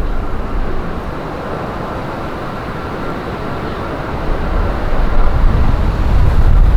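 Jet airliner passing with a steady rush of engine noise and a faint high whine through the middle. Strong wind buffets the microphone at the start and again from about five seconds in.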